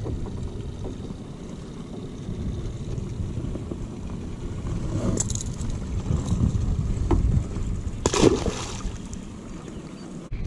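Small outboard motor running steadily at low trolling speed, with water washing against the boat. A splash comes about eight seconds in as the released pike drops back into the lake.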